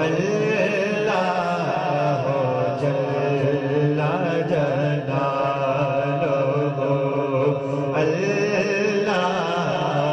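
Naat singing: a lead male voice sings drawn-out, wavering melodic phrases over a steady low vocal drone from the backing singers.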